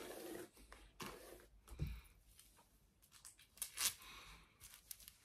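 Long clip-in hair extensions rustling as hands run through and lift the hair: several faint swishes, the strongest toward the end.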